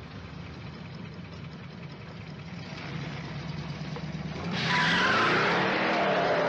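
Car engine idling, then about four and a half seconds in it revs up hard and the tyres screech as the car takes off.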